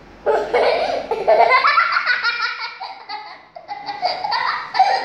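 Young children laughing in runs of quick giggles, which break off briefly about three and a half seconds in and then start again.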